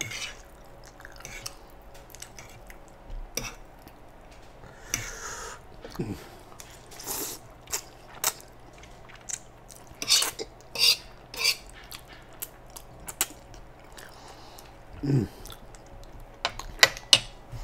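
Close-up eating sounds: a metal fork clicking and scraping on a griddle pan while spicy ramen noodles are slurped and chewed, with wet mouth clicks in irregular bursts.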